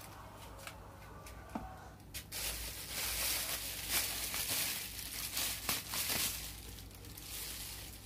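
Packaging rustling and crinkling as items are handled out of the kettle's box, with a few light clicks and knocks in the first two seconds.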